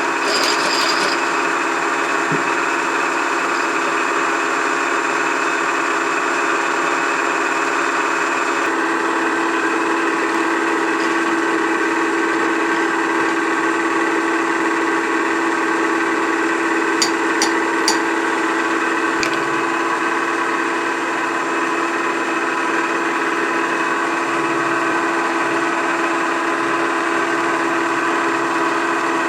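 Vertical milling machine running steadily with its spindle turning, as an edge finder is touched off against the workpiece to find its center: a constant motor hum and whine whose tone shifts about nine seconds in. A few light ticks come around the middle.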